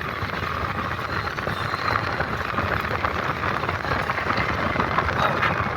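A vehicle driving on a rough unpaved road, heard from inside: a steady rumble with continuous rattling.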